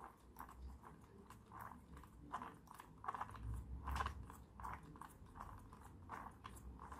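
A 3D-printed plastic gear-driven propeller being turned backwards by hand to wind its rubber band motor: a run of soft, faint clicks, two or three a second.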